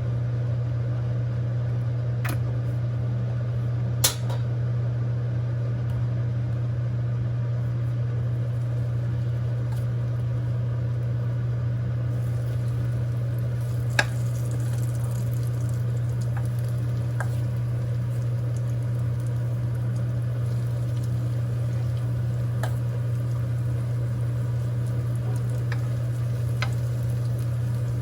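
Steady low hum of a running kitchen appliance, with a few sharp clicks and clinks of dishes or utensils, the loudest about four seconds in and again near the middle.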